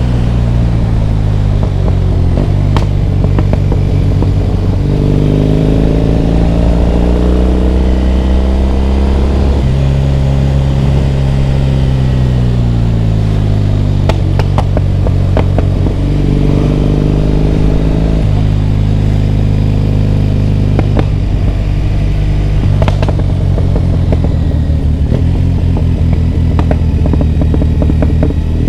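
Triumph Bonneville T100 parallel-twin engine running under way, its pitch climbing and then dropping several times as the throttle and gears change. A few sharp clicks come through during the ride.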